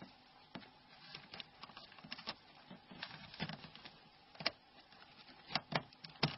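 Faint clicks and taps of small plastic phone parts being handled and fitted together: the Nokia N93's antenna assembly going into its cover. A few sharper clicks come in the last two seconds.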